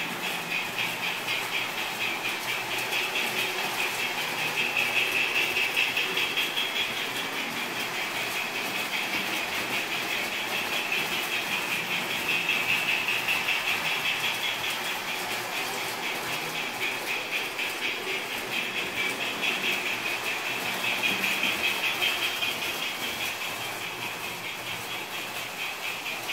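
O-scale model trains running around the layout: a steady whir of electric motors and wheels clicking over the track, swelling each time a train passes close, about every eight seconds.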